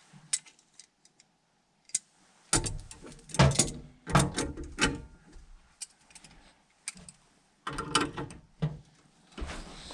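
Irregular metallic clicks, clanks and ratchet-like rattles of a wrench working on threaded gas pipe fittings, coming in two busy clusters with quiet gaps between.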